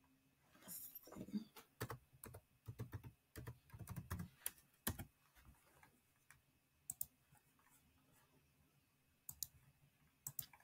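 Faint typing on a computer keyboard, a quick run of keystrokes for a few seconds, followed by a few single clicks spaced apart.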